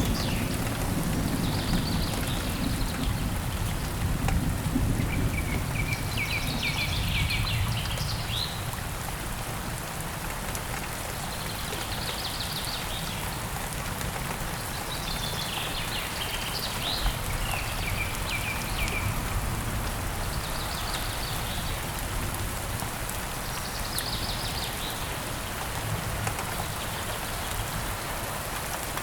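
Steady rain falling, with a bird giving short, rapid trilled calls every few seconds.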